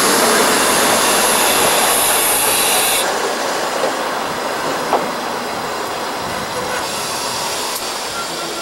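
Old-type passenger coaches rolling slowly along a platform as the train brakes to a stop. A high brake squeal cuts off about three seconds in, and the rolling noise fades as the coaches slow.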